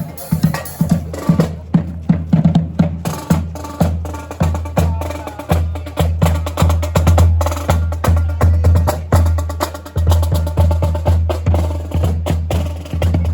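Brass marching band playing, with drums and sharp clicking percussion to the fore over a low bass line.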